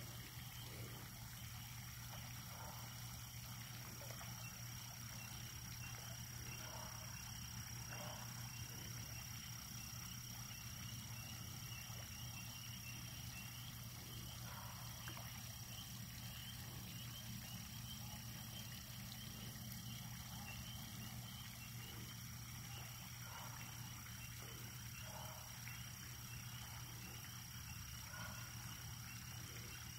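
Faint chorus of frogs calling at a pond, a steady pulsing trill that runs on without a break.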